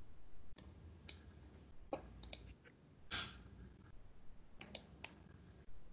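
Faint computer mouse clicks, a handful of sharp single and paired clicks, over quiet room noise.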